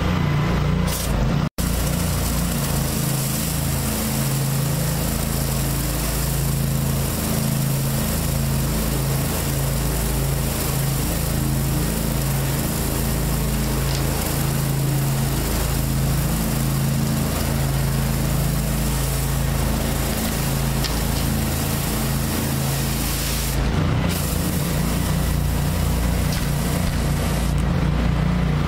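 Engine-driven pressure washer running steadily, with water hissing from a rotary flat surface cleaner being pushed over concrete. The sound drops out for an instant about a second and a half in.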